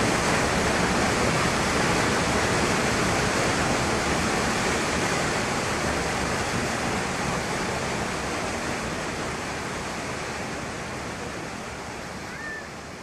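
Waterfall pouring steadily into a creek, a dense rushing noise that slowly fades away over the second half.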